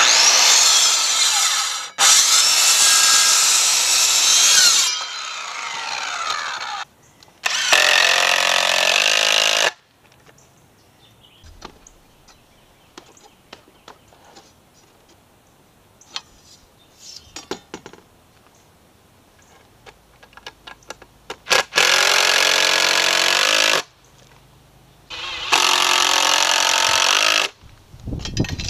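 Circular saw cutting through a wooden 4x4 post twice in quick succession near the start. This is followed by a cordless drill driving screws into the wood frame in three bursts of about two seconds each, with long quiet gaps between them.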